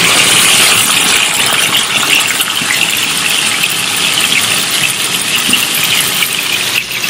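Steady hissing sizzle of masala-coated fish steaks shallow-frying in oil.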